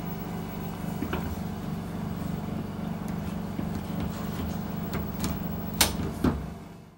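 Steady low electrical hum with a click about a second in and a few sharp clicks near the end, then fading out.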